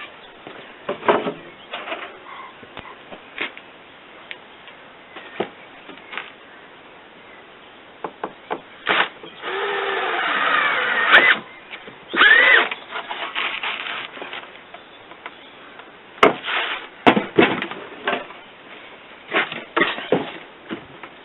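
Workshop tool noises on wood: irregular knocks and scrapes, with a few seconds of squealing, gliding whine about nine seconds in.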